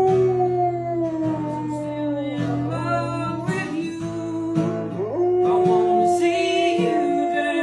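Old English Sheepdog howling along to a strummed acoustic guitar: long drawn-out howls that hold a note and slide in pitch, one at the start and another from about five seconds in.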